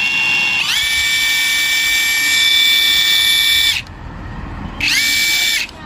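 Cordless impact wrench's electric motor spinning up free with no load on a trigger pull, a high whine that rises as it starts: one run of about three seconds, then a second short burst near the end. This is a test run after reassembly and servicing.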